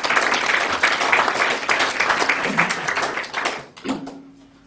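Audience applauding, many hands clapping together, then dying away about four seconds in.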